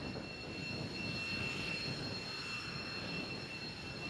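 X-47B unmanned aircraft's turbofan jet engine running in low flight, a steady rushing noise with a steady high whine on top.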